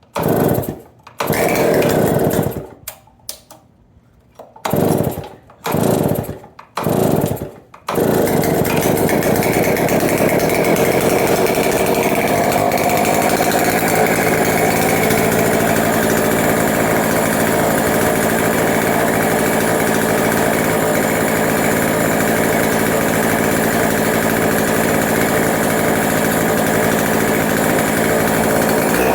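A 105 cc MS 070-clone two-stroke chainsaw being cold-started from new: a few short bursts as the starter rope is pulled, then at about eight seconds the engine catches and keeps running steadily. The owner feels it needs more RPM, its carburettor not yet adjusted.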